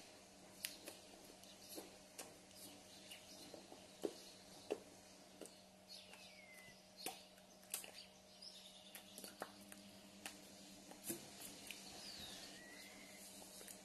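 Near silence: room tone with a faint steady hum, scattered faint clicks and taps from a signer's hands and mouth, and a few faint falling chirps.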